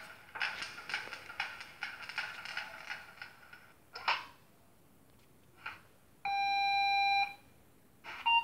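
Sound decoder in an H0 Acme E402 model locomotive, playing recordings of a real E402 electric locomotive through its small speaker: a fast run of metallic clicks and knocks with a ringing note for the first few seconds, then single clicks. About six seconds in comes one steady beep-like tone lasting about a second, and near the end a shorter, higher tone begins.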